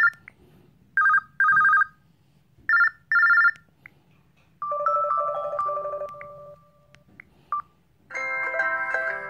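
LG Smart Folder phone ringtones played back to back. First comes a telephone-bell-style ring in short paired bursts, then a short electronic melody, and a new chiming ringtone starts near the end.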